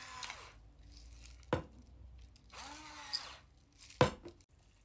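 Kitchen handling noises: two sharp knocks, about a second and a half and four seconds in, the second louder, as of a utensil struck against a bowl or board. A brief murmur of voice falls between them.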